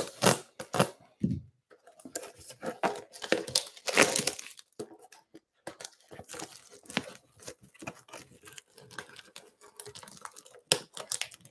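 Plastic shrink-wrap on a trading-card box being slit with a knife, then torn and crinkled off by hand. It makes a run of sharp crackles and tearing, loudest in the first second and again about four seconds in.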